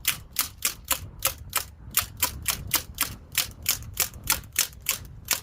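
Umarex MP40 CO2 BB gun firing a rapid string of shots, about four sharp cracks a second, evenly spaced.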